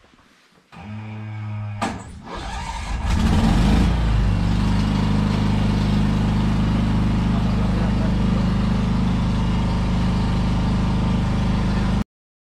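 An engine starts about a second in, picks up over the next two seconds, then runs loud and steady before cutting off suddenly near the end.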